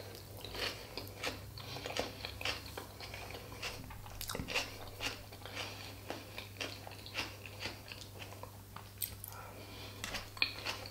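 Close-miked chewing of food: a person biting and chewing with a string of irregular wet clicks and smacks. A low steady hum sits underneath.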